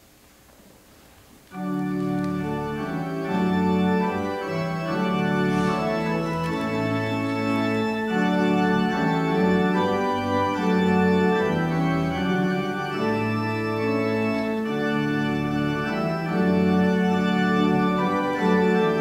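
Church organ starts about a second and a half in and plays held chords that change every second or two.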